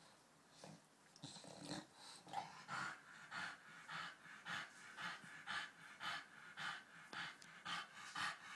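British bulldog panting hard in a steady rhythm of about two breaths a second, starting about two seconds in after a few short snuffles.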